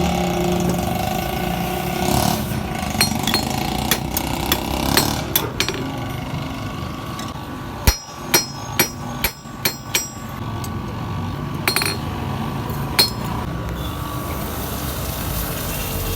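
Hammer striking metal in irregular blows, a few of them ringing, with a quick run of sharper ringing strikes in the middle, over a steady background noise.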